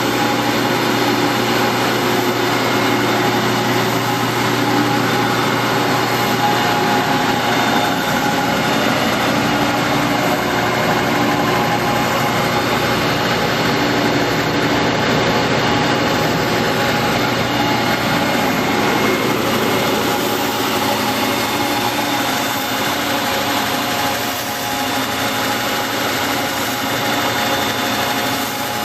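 Grizzly G9962Z 24-inch wide belt sander running empty with no stock on the feed belt: a steady, loud machine whir holding several fixed tones.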